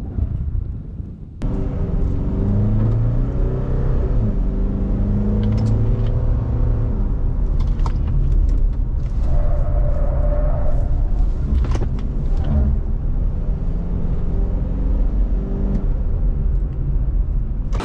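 Pickup truck driving at speed: the engine pulls under load over a steady low rumble of road and wind noise, coming in abruptly about a second and a half in.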